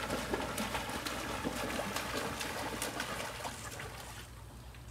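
Pool water splashing and sloshing as children swim and thrash beside an inflatable ring float, with many small splashes; it dies down to softer lapping near the end.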